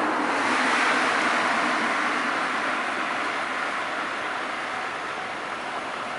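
Freight train hauled by a JR Freight EF510 electric locomotive passing at high speed: a steady rush of wheels on rail, loudest about a second in and easing off gradually as the loaded container wagons go by.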